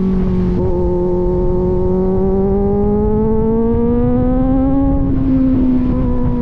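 Kawasaki Z900's inline-four engine through an aftermarket AR exhaust, running under steady throttle on the road, its pitch climbing slowly for about four seconds and then easing off a little.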